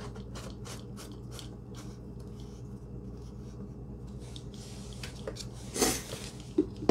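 Screwdriver tightening the screws of a scooter's aluminium deck plate: a run of faint clicks and scrapes of the tool in the screw heads, with a louder brief clatter about six seconds in, over a steady low hum.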